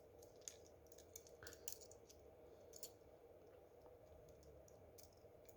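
Near silence with a few faint, scattered clicks of a small tool working the latch of the HW16 smartwatch's touch-screen connector.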